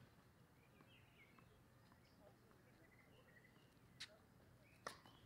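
Mostly near silence with faint bird chirps, then two sharp tennis ball impacts less than a second apart near the end: a racket strike from the far end of the court and the ball's bounce.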